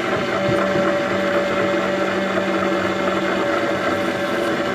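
Small electric motor of a toy egg-decorating spinner running steadily, a whirring hum as it turns an egg against marker tips.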